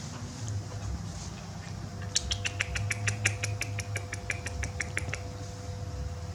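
An animal call: a rapid, even run of about twenty sharp, high chirps, some seven a second, starting about two seconds in and lasting some three seconds.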